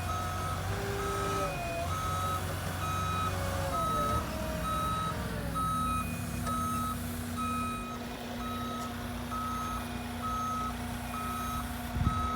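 Delivery truck's backup alarm beeping steadily about twice a second while the truck unloads concrete pallets, with its engine running underneath; the engine's pitch wavers in the first few seconds, then settles to a steady hum.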